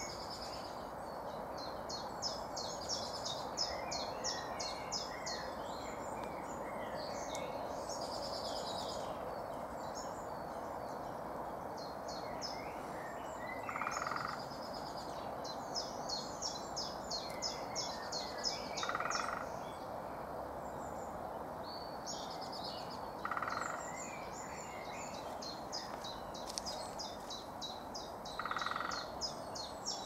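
Woodland songbirds singing phrases of quick, high repeated notes, over a steady background hiss. In the second half come four short bursts, each about half a second long and about five seconds apart, matching the distant drumming of a great spotted woodpecker on a tree trunk.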